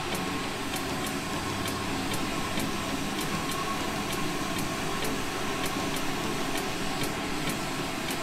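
Glassblowing bench torch flame burning with a steady rushing hiss while glass tubing is heated in it. A faint high tick repeats about twice a second behind it.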